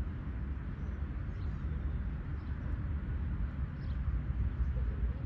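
Outdoor beach ambience: a steady low rumble and noise haze, with a few faint, short, high bird chirps.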